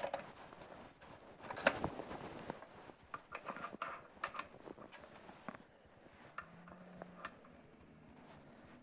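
Light metal-on-metal clicks and knocks of a cut steel bushing section and a steel rod being handled and fitted together at a bench vise. One sharper knock comes about two seconds in, then a run of small taps that thins out after about five seconds.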